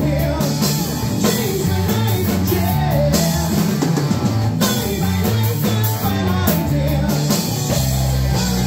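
Live rock band playing: electric guitar, electric bass and drum kit together in a loud, steady passage.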